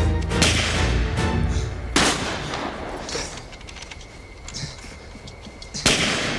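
Battle sound effects over a film music score: gunshots, one near the start, a loud one about two seconds in and another near the end, with a low rumble under the first one.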